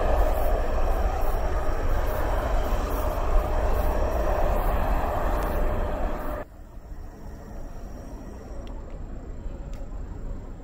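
Jet airliner engine noise: a loud, steady rush with a held tone and deep rumble that drops off abruptly about six seconds in, leaving a much fainter, distant airport background.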